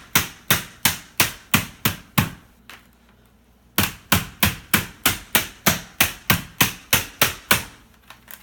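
Rubber mallet hammering a Gamma Seal lid's adapter ring down onto the rim of a plastic bucket: sharp blows about three a second, in two runs with a pause of about a second and a half between them.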